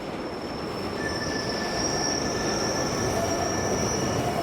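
Subway train running on the rails, a dense rumble with steel wheels squealing in steady high tones that join about a second in.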